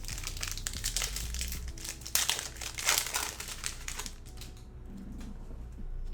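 A trading-card pack's plastic wrapper being crinkled and torn open, loudest about two and three seconds in, then dying down.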